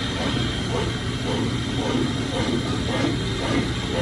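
Grinding machine running steadily as it grinds the teeth into the jaws of metal delivery forceps: an even grinding noise with a constant high whine over a fast low rattle.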